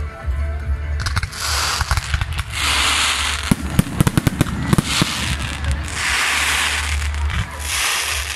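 Aerial fireworks going off overhead, with a quick run of sharp crackling bangs about three and a half to five seconds in and stretches of hissing noise before and after.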